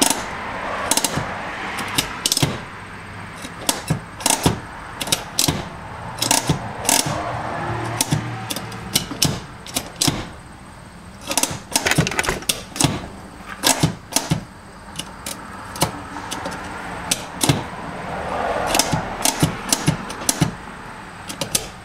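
Parking-brake lever ratchet on a 1990 Fox-body Mustang clicking as the lever is worked to try out a newly installed e-brake cable. Sharp clicks come irregularly in short runs.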